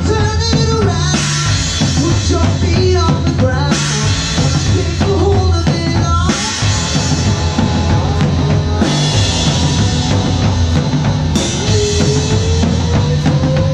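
Live rock band playing, heard from right at the drum kit. Bass drum and snare hits drive the beat, with cymbal crashes about every two and a half seconds, over bass and electric guitar.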